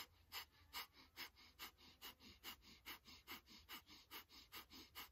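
Rapid, rhythmic forceful exhales through the nose, about two and a half a second, driven by pumping the navel: Kundalini breath of fire.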